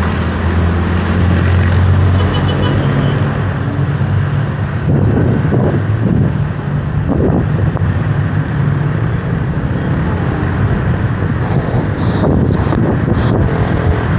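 Road traffic: a low engine hum from nearby vehicles, with cars passing close by a few times.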